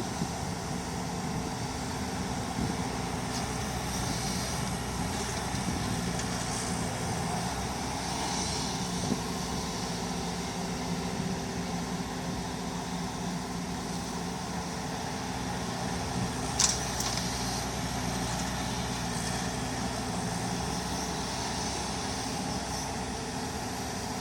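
Heavy diesel engine of a Komatsu excavator running steadily, with a single sharp clank about two-thirds of the way through.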